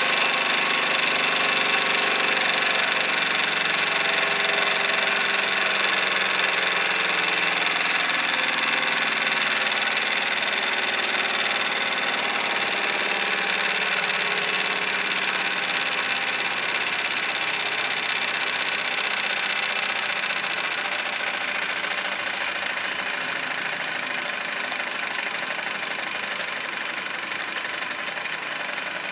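Wilesco D18 toy steam engine running at speed: a fast, steady mechanical chatter that slowly grows quieter.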